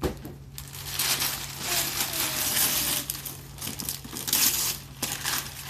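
Gift wrapping paper being torn and crumpled as a present is unwrapped. A dense rustling that is loudest in the first few seconds, then breaks into shorter crackles.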